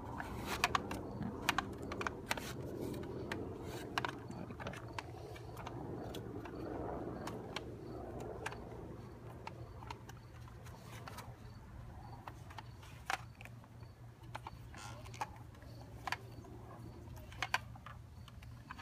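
Scattered clicks and light scrapes of a garden-hose coupling being twisted tight by hand onto a plastic lawn sprinkler's threaded inlet, over a steady low hum.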